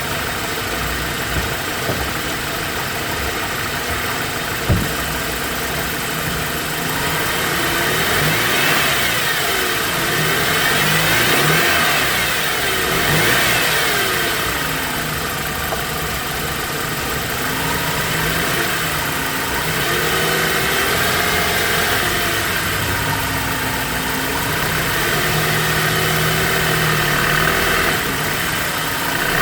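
BMW E90 engine idling, then revved up and down several times, with a whine that rises and falls with engine speed. The whine is the fault being traced among the drive belts and pulley bearings. A single sharp click comes a few seconds in.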